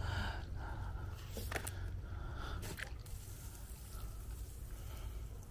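Faint water sounds of a hose left running into a filling plastic container: a steady low trickle with a few small drips and clicks.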